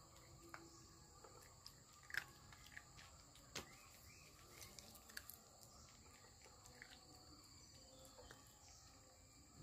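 Indian Spitz puppy eating dry kibble from a stainless steel bowl: faint, scattered clicks and crunches of kibble against the steel, the sharpest about two and three and a half seconds in, over a steady high background hiss.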